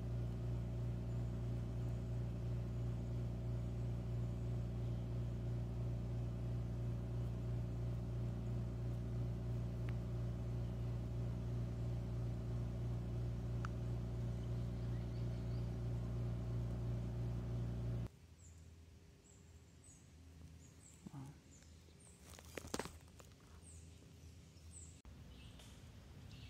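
A steady low droning hum, like a motor or engine running, stops abruptly about two-thirds of the way in. Then comes quieter woodland background with faint high chirps, likely birds, and a brief sharp crackle near the end.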